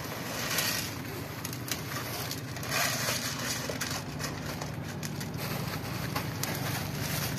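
Crunching and crinkling: a plastic bag of dry cat kibble rustling as kibble is poured onto a metal tray, while several cats crunch the dry food.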